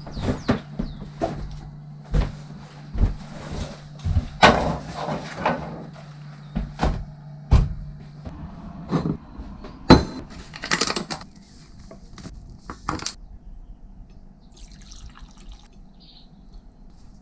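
Knocks, thumps and footsteps on a wooden floor as motorcycle bags are carried in and set down, the loudest thump about ten seconds in. Near the end it turns much quieter, with water poured into a bowl of flour and a wooden spoon stirring it.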